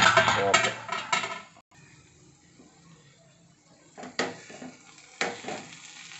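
Metal pan lid clattering and ringing as it is handled and set down. A few seconds later a spatula scrapes and knocks in a nonstick pan, a few strokes, as the dry-cooked vegetable thoran is stirred.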